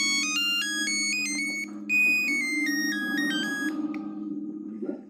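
Nokia 3315 playing a monophonic ringtone: a quick melody of plain electronic beeps that stops about four seconds in. Underneath is a steady low droning background score.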